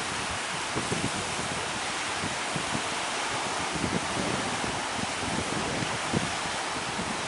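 Steady rushing of sea surf and breaking waves, with wind buffeting the microphone in irregular low thumps.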